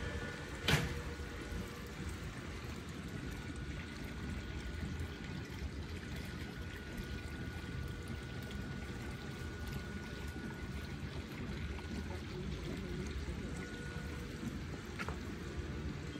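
Pool water trickling steadily, with a sharp click about a second in and a fainter one near the end. A faint steady high tone runs through the middle.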